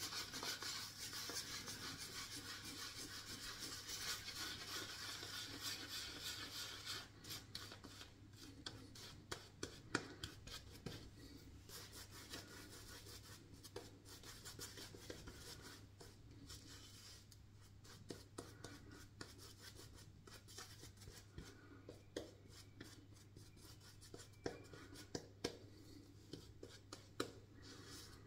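Synthetic shaving brush scrubbing wet lather on the face: a steady swishing for the first seven seconds or so, then quieter rubbing with scattered small crackles and ticks of the lather.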